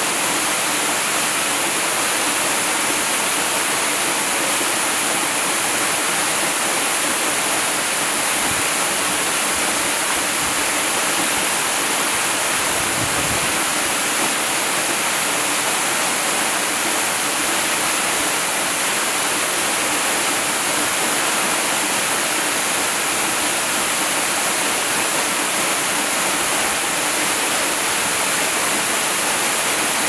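Waterfall falling onto rocks and a shallow pool: a steady, even rush of water with a strong hiss.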